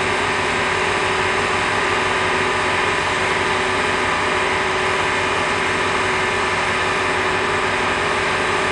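Steady engine drone of idling construction machinery: a constant noise with a few steady humming tones, unchanging throughout.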